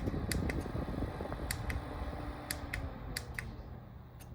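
Small battery-powered clip fan running, its airflow buffeting the microphone as a low rumble, with a faint motor tone that slides lower as the fan slows. Sharp clicks, mostly in pairs, sound through it.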